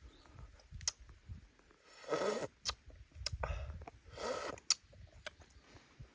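A person slurping soup off a metal spoon twice, about two and four seconds in, with sharp little clicks of the spoon and lips in between and chewing.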